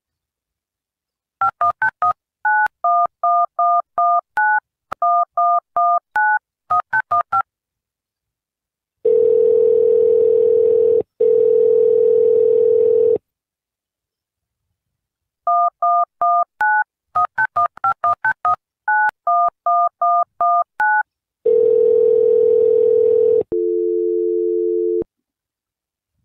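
Telephone keypad tones dialing a number in quick runs of beeps, each run followed by long steady ringing tones of a call that nobody answers. The last tone is lower in pitch.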